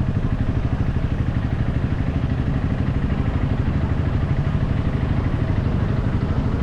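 Motorcycle engine running steadily on the move, a fast even low pulse under a constant rush of wind and road noise.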